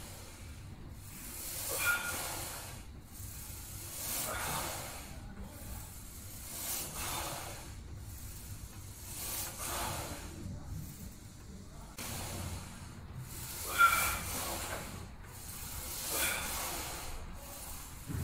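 A man's forceful breaths, hissing in and out in time with bench-press reps, about one every two and a half seconds. The loudest, about fourteen seconds in, carries a brief whistle.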